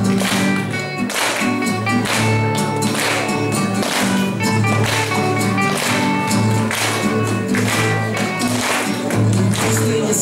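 Instrumental introduction of a song played by a small band of electric guitar and two acoustic guitars, over steady low notes with an even beat about once a second.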